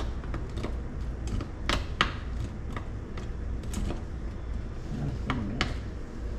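A wooden spoon stirring in a steel stockpot, knocking against the pot in irregular clicks and clacks, the sharpest about two seconds in.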